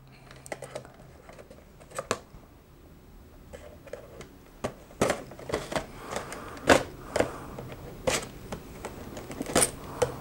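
A kitchen knife cutting open the seal of a small cardboard box: irregular sharp clicks and short scrapes of the blade on the cardboard, with the box being handled. They are sparse at first and come thicker from about five seconds in.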